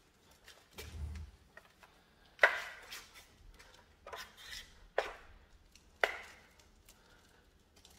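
Steel trowel scraping and slapping over wet decorative plaster in short strokes as the coating is worked into a textured pattern. Three stronger strokes come about two and a half, five and six seconds in, with lighter scrapes between them.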